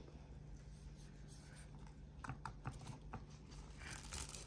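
Faint kitchen handling noises: a few light clicks and scrapes over a low steady hum, getting busier near the end.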